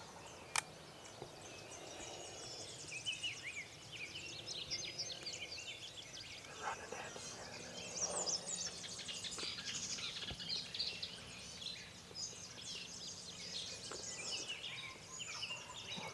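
Dawn chorus of many songbirds, a dense run of chirps and trills, with one sharp click about half a second in.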